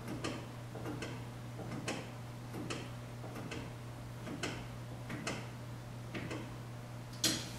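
Brake pedal being pumped during a brake bleed, giving a regular click a little under once a second, with one louder, sharper click near the end; a steady low hum lies underneath.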